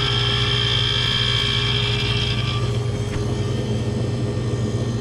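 Tecumseh hermetic compressor of a True T-23F reach-in freezer running during a pump-down test, with a steady hum. A higher whine over it fades out about halfway through. The technician puts its loud running down to liquid refrigerant flooding back.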